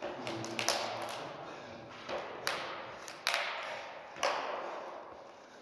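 Several sharp knocks at irregular intervals, each ringing out in a long echo that fades over about a second, in a large empty concrete hall.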